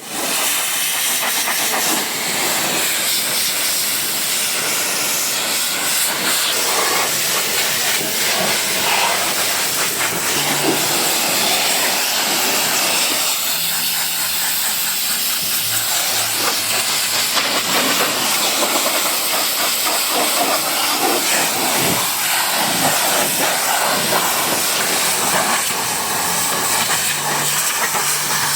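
High-pressure water spraying in a steady hiss from a pressure washer wand, with a faint low hum from the machine at times.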